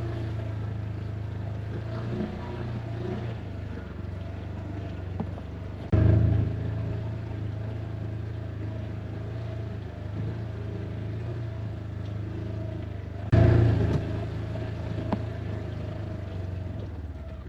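Polaris Ranger XP side-by-side's engine running steadily while driving, a low even hum. The sound jumps abruptly louder twice, about 6 and 13 seconds in, then settles back.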